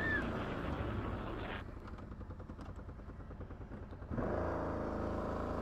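ATV engine running, dropping to a quieter low rumble after about a second and a half, then revving up again about four seconds in.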